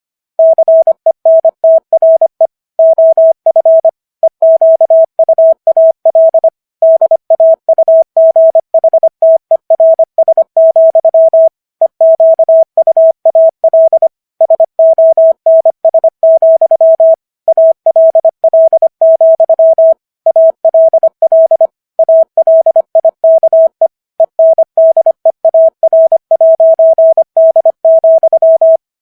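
Morse code sent at 25 words per minute as a single mid-pitched practice tone keyed on and off in dots and dashes, with short gaps between letters and longer pauses between words. It spells out the text of Walt Whitman's poem "America".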